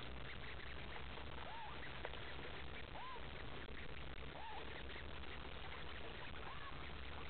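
Mallard ducklings peeping: about four thin whistled cheeps, each rising and then falling in pitch, spaced a second or two apart over a steady background hiss.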